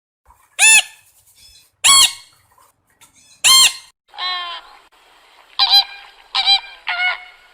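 Poultry squawking: three loud, strident calls about a second and a half apart, then a softer call and three shorter squawks in quick succession.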